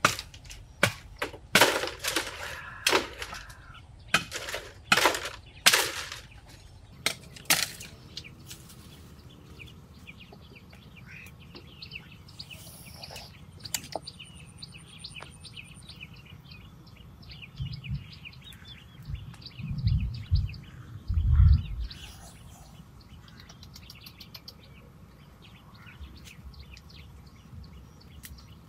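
About a dozen sharp knocks in quick succession over the first several seconds. After them, birds chirping rapidly and steadily, with a few dull low thumps a little past the middle.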